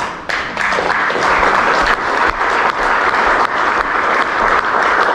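A large crowd applauding steadily, a dense mass of many hands clapping.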